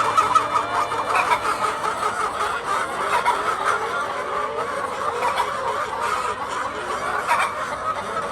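A flock of Egyptian laying hens clucking, many birds calling over one another continuously.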